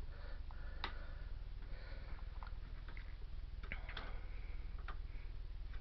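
A few short, scattered clicks and small handling noises over a low steady hum.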